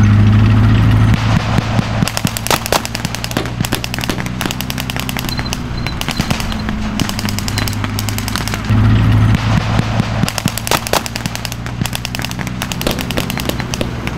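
Vehicle-mounted machine guns firing long, rapid bursts, starting about a second in, over the steady low drone of armored-vehicle engines running. The engine drone swells briefly a little past halfway.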